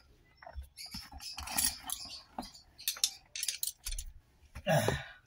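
Scattered small clicks, taps and light rattles from hands working on a steering wheel's horn pad and its parts, with a louder knock near the end.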